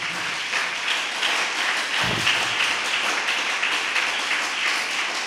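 A congregation clapping their hands together in praise: steady applause of many hands.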